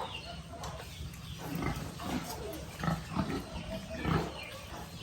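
Pigs grunting: short calls in quick succession, starting about a second and a half in.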